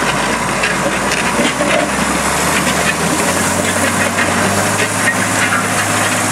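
John Deere 8440 tractor's turbocharged six-cylinder diesel running steadily under load, its note stepping up a little about three seconds in, with the steel discs of a trailed disc harrow crackling and rattling through dry ground.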